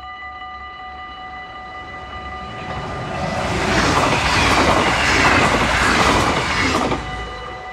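NS double-deck passenger train passing over a level crossing: rumble and wheel clatter swell from about two and a half seconds in, stay loud for a few seconds and cut off sharply near the end as the last carriage clears. The crossing's warning bell rings steadily throughout.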